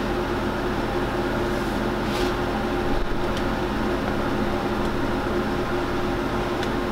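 Steady mechanical hum with several held tones, of the kind a room fan or air conditioner makes. A few faint clicks come through, as a cardboard action-figure box is turned on the table.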